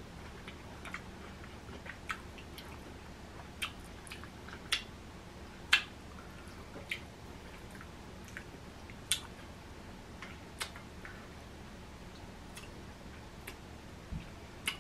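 Close-up chewing of Flamin' Hot Cheeto-breaded fried seafood and pickles: irregular crisp crunches and mouth clicks, roughly one a second.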